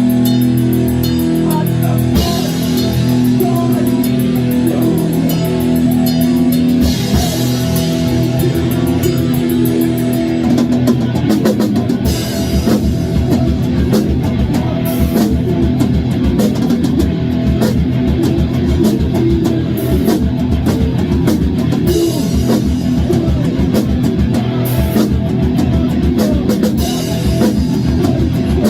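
Thrash metal band playing live: electric guitars, bass and drum kit. Held chords give way, about ten seconds in, to a fast, driving drum beat under the guitars.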